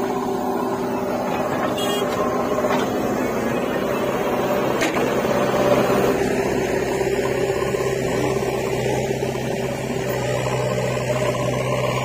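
JCB 3DX backhoe loader's diesel engine running as it tips a bucketful of soil into a tractor trolley, with a few sharp knocks. About halfway through it gives way to the steadier, lower engine note of a tractor pulling the loaded trolley away.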